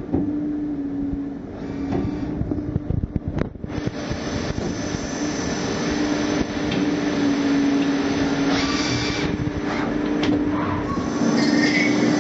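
EMCO Maxxturn 65 CNC lathe running: a steady motor hum over a mechanical whir, with a sharp click about three and a half seconds in. Near the end a higher whine sets in and slowly falls as turning of the aluminium sprocket on the counter spindle begins.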